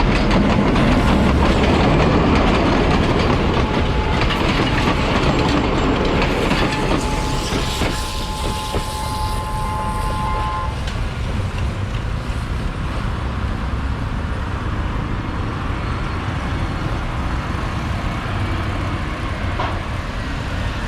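A train passing over a level crossing, its wheels clattering on the rail joints; the rumble is loudest for the first several seconds, then eases. A steady two-note tone is held over it until about ten seconds in, then cuts off.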